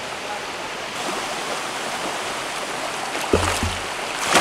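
Steady rushing of a shallow creek riffle. A couple of dull bumps come a little past three seconds, and a sudden splash near the end as a hooked steelhead thrashes at the surface in the shallows.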